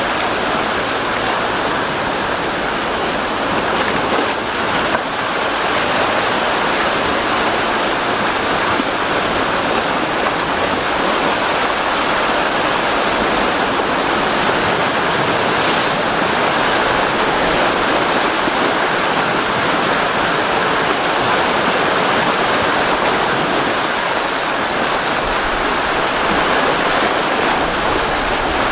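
Steady rushing of rough surf and wind-blown spray under a strong wind of about 12 m/s.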